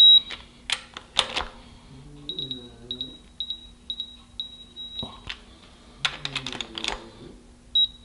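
A digital torque adapter on a ratchet beeps in short pips at one steady high pitch as torque builds on the oil pump bolts, with a long beep at the very start as it reaches the 35 ft-lb setting. Ratchet clicks come about a second in and again around six to seven seconds. Faint snoring is heard in the background.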